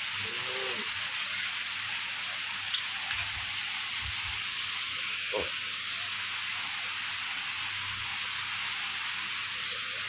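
Steady hiss of running and spraying water from garden water features, with a brief faint voice near the start and again about five seconds in.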